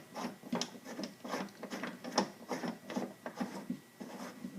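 Retaining nut being threaded by hand onto a Marble Products 550 shampoo bowl faucet over its new cartridge: a run of small, irregular clicks and scrapes, several a second.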